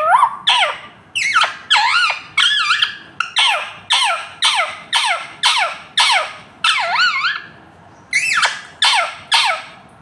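Rose-ringed parakeet (Indian ringneck) calling over and over: a run of short, shrill squawks that swoop up and down in pitch, about two a second, with a pause of about a second near the end.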